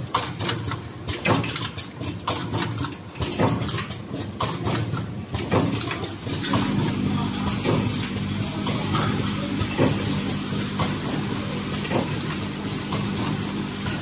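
Closed-end plastic zipper slider mounting machine running: a quick, uneven series of sharp mechanical clicks and clacks for about the first six seconds, then a steady machine hum with a low tone.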